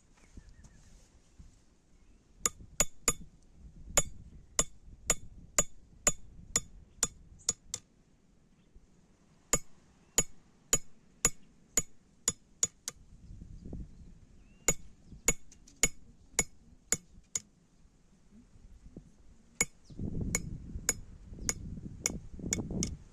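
Hammer blows ringing on hot iron at an anvil, about two strikes a second, in three runs with short pauses between them. A low rumbling noise rises under the last run.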